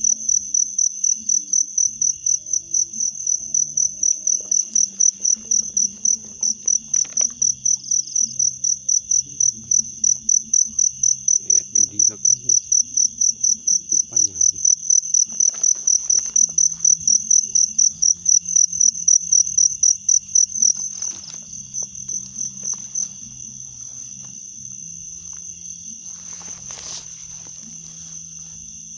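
An insect chirping in a fast, even rhythm of about three or four high-pitched pulses a second. About two-thirds of the way through, it gives way to a quieter, steady trill at the same pitch, with a brief rustle near the end.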